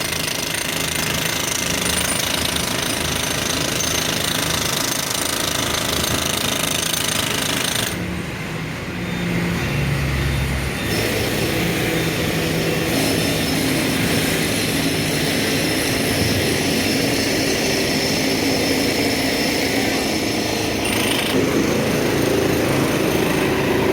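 Heavy construction machinery running with a rapid, steady hammering rattle. The sharper upper part of the sound drops away for a few seconds about a third of the way in, then comes back.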